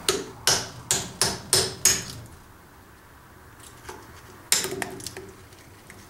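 Hammer blows on a square bolt head used as a drift, driving the copper secondary winding out of a microwave oven transformer's iron core held in a vise. Six quick metal-on-metal strikes come in the first two seconds. About four and a half seconds in there is one last sharp knock with a short rattle as the secondary comes free.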